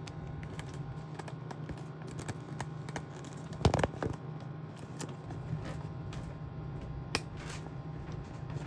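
Handling noise from a camera being moved and set in place: scattered small clicks and knocks, with one louder clunk just under four seconds in, over a steady low hum.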